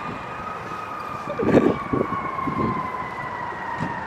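A siren wailing: one tone slowly rising and then falling in pitch. Brief low rumbles of noise sit under it, the loudest about a second and a half in.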